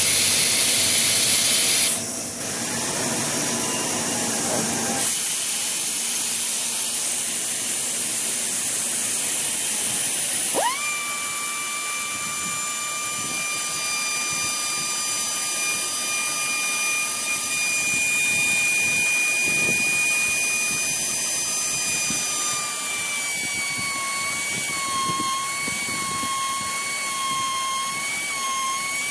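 Gison GPD-231 pneumatic drilling machine with compressed air hissing. About ten seconds in, its air motor spins up to a steady high whine. In the last several seconds the whine's pitch dips and wavers as the drill is fed in.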